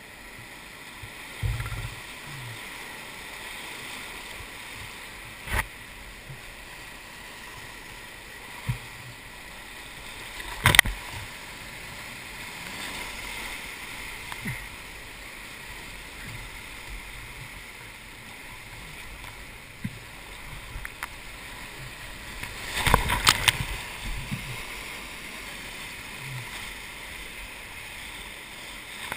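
Whitewater rapids rushing steadily around a kayak at a high flow of about 3600 cubic feet per second, with sharp splashes now and then. The loudest splash comes about eleven seconds in, and a cluster of them comes a little past twenty seconds.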